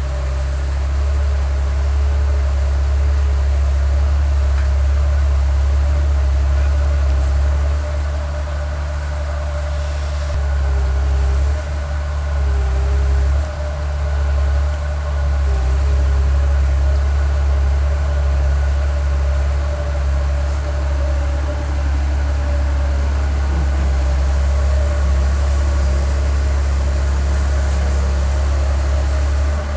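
Komatsu excavator's diesel engine running steadily with a deep, even drone, dipping briefly twice partway through.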